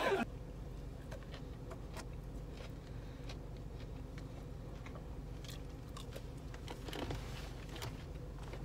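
A person chewing crispy fried tempura green beans: faint, scattered crunches and clicks over a low steady hum.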